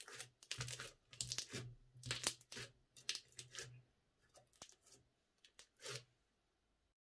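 A hand pressing and squishing crunchy slushie-bead slime, giving quick crackling crunches with each press. The crunches are dense for the first few seconds, thin out, and stop about six seconds in.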